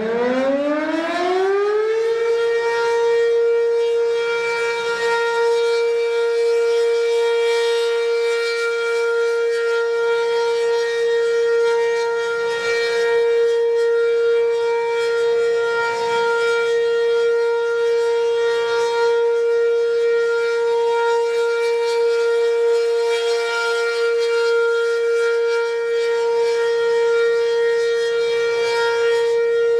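B&N Mobil Directo tornado siren finishing its wind-up, its pitch rising over the first two seconds, then holding one steady tone with several overtones.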